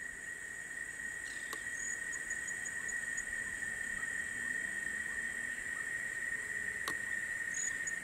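Insect chorus in forest: a steady high-pitched drone that fades in, with a short run of rapid high chirps heard twice.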